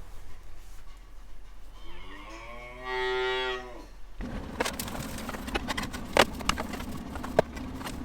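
A Jersey cow mooing once, a pitched call of about two seconds in the middle. After it comes a steady hum with a few sharp knocks and clanks.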